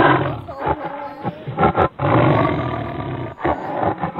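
Recorded animal roars, several in a row with short breaks between them, in the manner of a big cat such as a lion or tiger.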